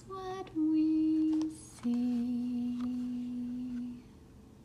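A woman humming a short tune of three held notes, each lower than the last; the last note is held about two seconds and stops near the end.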